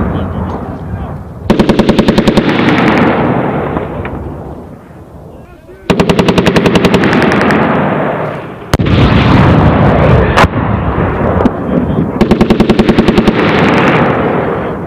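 Automatic gunfire: three bursts of rapid shots, each about a second long, starting about 1.5, 6 and 12 seconds in, with two single heavy shots in between. Each burst leaves a long rolling echo that fades over a few seconds.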